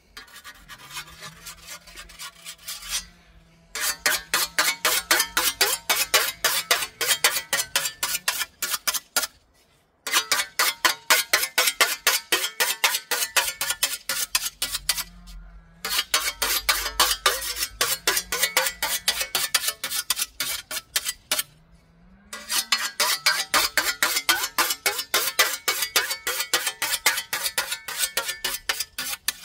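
Whetstone stroked rapidly back and forth along a steel scythe blade, honing its edge: a ringing metallic scrape about four strokes a second, in runs of several seconds with brief pauses between.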